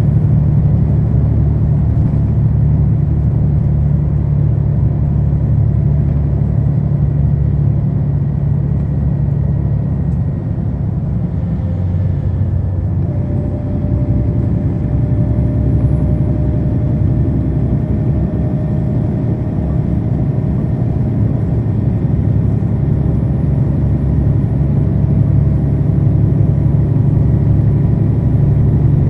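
A 2009 NABI 40-SFW transit bus's Cummins ISL9 diesel engine running under way, heard from inside the bus as a steady low drone. It eases off briefly about eleven seconds in, then picks up again with a slightly changed tone.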